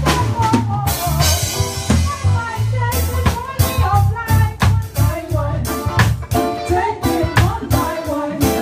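Live band playing a groove: electric bass, keyboard, electric guitar and drum kit. A cymbal crash rings out a little over a second in.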